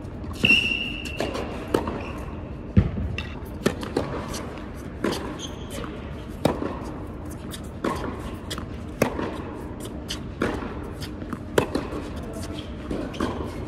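Tennis rally on an indoor hard court: the sharp pops of racquets striking the ball alternate with the ball bouncing on the court, about one hit every second or so, echoing in the hall.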